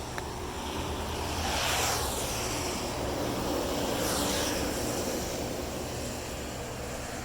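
Two vehicles passing by one after the other, each swelling and fading with a falling sweep, over a steady low rumble of traffic and wind.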